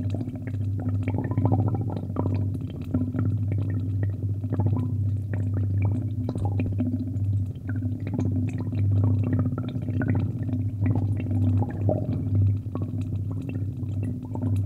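Steady low hum under frequent small clicks of a computer mouse and keyboard.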